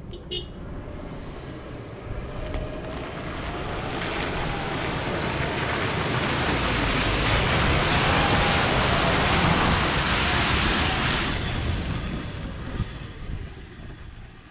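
Toyota Hilux towing a caravan through a muddy bog hole: engine revving under the splash and churn of mud and water, building up to a peak around the middle and then fading away.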